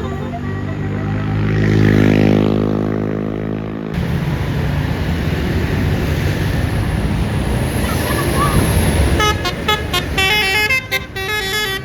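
A bus's low, steady engine drone swells and then cuts off abruptly, followed by engine and road noise. About nine seconds in, a Basuri telolet horn starts a quick stepped melody of horn tones.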